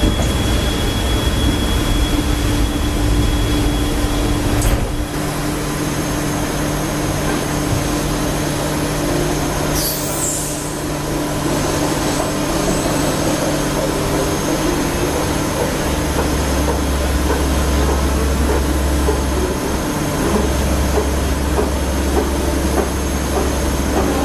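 CNC vertical lathe running in a machine shop: a steady mechanical hum with constant tones, which shift about five seconds in, and a deeper hum that joins about two-thirds of the way through, breaking off briefly once.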